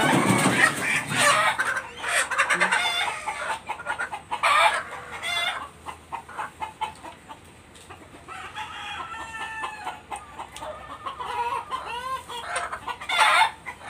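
Native chickens, young pullets held with their feet tied, clucking and calling in many short, repeated calls while being handled, with a quieter stretch midway.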